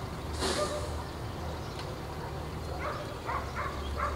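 A dog barking a quick run of short barks in the second half, over a steady low rumble, with a brief rush of noise about half a second in.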